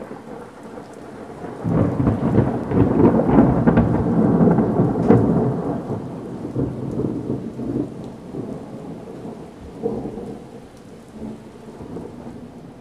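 Rolling thunder over steady rain. The rumble swells about two seconds in, stays loudest for a few seconds, then dies away, with a smaller roll near the end.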